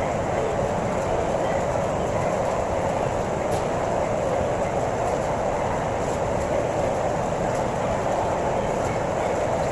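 Steady machinery noise: an even, unbroken rush with no strokes or changes.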